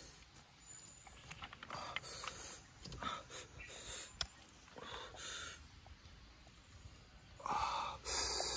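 A man's short breathy sniffs and sucking noises while eating roasted snails, in several separate bursts, the loudest near the end.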